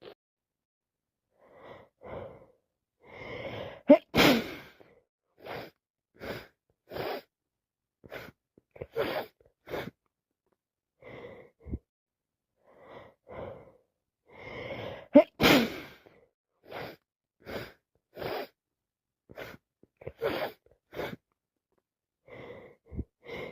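A person with a wet, snotty cold sneezing twice, loudly, about 4 seconds in and again about 15 seconds in, each sneeze preceded by a run of catching, gasping in-breaths. Short sniffs and breaths come between the sneezes, and another build-up of gasping breaths starts near the end.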